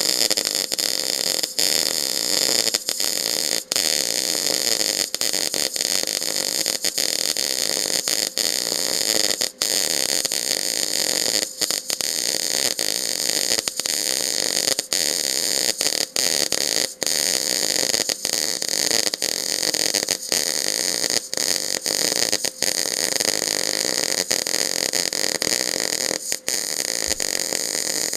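Eastwood MIG 250 welding arc running a fillet weld on a mild-steel T-joint, set just below 18 volts with about 200 wire feed speed. A steady, loud sizzling hiss is broken by brief dropouts at irregular intervals, often less than a second apart.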